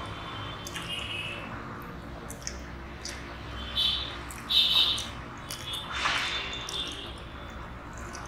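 Eating by hand: fingers mixing and squishing rice and curry on a steel plate, with wet mouth and chewing sounds. A few short, sharp, high-pitched sounds come about halfway through.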